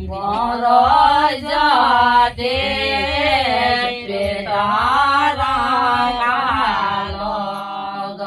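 Women singing a fāg, a traditional Uttarakhandi Pahadi devotional folk song, together in a chant-like melody. The melody goes in long, wavering phrases with short breaths between them.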